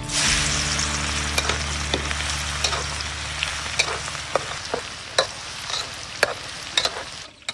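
Chicken deep-frying in hot oil: a steady sizzling hiss with scattered sharp pops and spatters, easing a little and cutting off just before the end.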